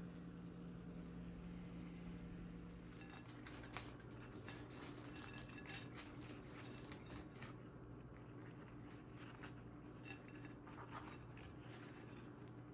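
Faint, scattered clicks and taps of kitchen utensils and dishes being handled, over a low steady hum. Two sharper clicks come about four and six seconds in.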